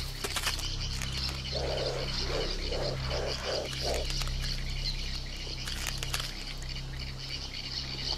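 Wildlife ambience: a steady high-pitched animal chorus over a low hum. About a second and a half in comes a run of six short, low calls lasting about two and a half seconds.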